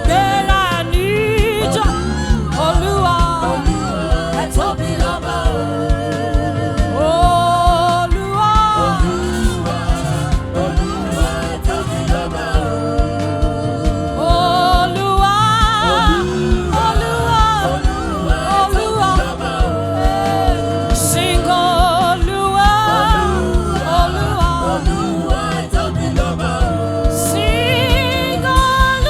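Live gospel praise music: voices singing a wavering melody over a steady drum beat and bass.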